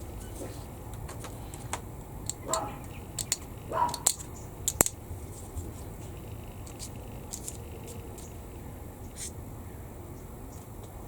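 Small clicks and taps of plastic model-kit parts and hobby tools being handled on a workbench, busiest in the first half, with a few short squeaks around the middle.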